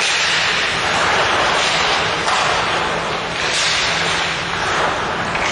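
Ice-hockey rink noise during play: skates cutting and scraping on the ice in a steady rushing wash that swells now and then, over a low steady hum.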